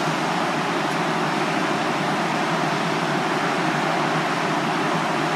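DART light-rail train standing at the platform, its air-conditioning and onboard equipment running with a steady whooshing hum and a faint steady tone.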